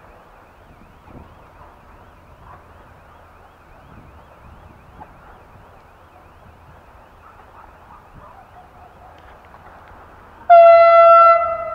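A diesel-electric multiple unit's horn sounds one loud, single-pitched blast near the end, starting suddenly and then fading. Before it there is only a faint outdoor background.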